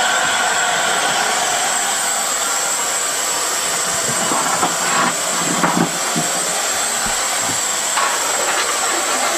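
Steam locomotive with a steady hiss of escaping steam, and a few short knocks about halfway through.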